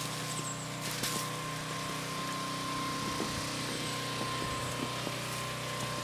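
A small engine running steadily, a constant hum with a thin high whine over it.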